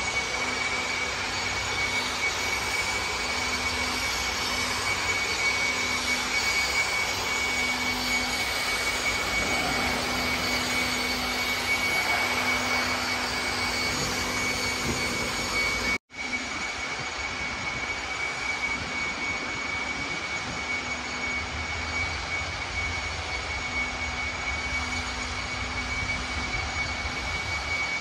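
Electric air blower running steadily with a high whine, used to clear dust off a sanded floor ahead of the final epoxy coat. The sound cuts out for an instant about halfway through and then carries on the same.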